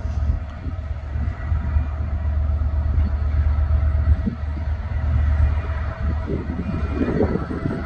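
Class 66 diesel-electric locomotive's two-stroke V12 engine running with a deep, steady rumble as it draws a ballast train slowly along, with faint steady higher tones over it. There is a rougher stretch near the end.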